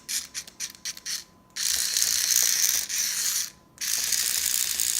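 Remote-control toy cockroach's small geared motor whirring as its legs crawl. It comes in several short bursts during the first second and a half, then runs longer, with a brief stop a little past the middle.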